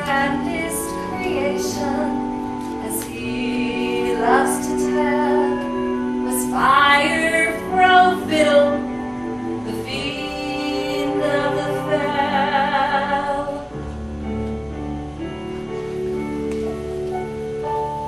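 A woman singing a slow show tune with wavering held notes over sustained accompaniment chords from a live stage musical; the accompaniment shifts lower about two-thirds of the way through.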